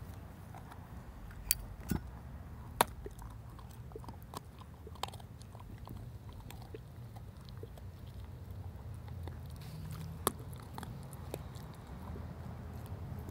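Husky gnawing on a large femur bone: scattered sharp cracks and scrapes of teeth on bone, loudest three times in the first three seconds and once again about ten seconds in, over a low steady rumble.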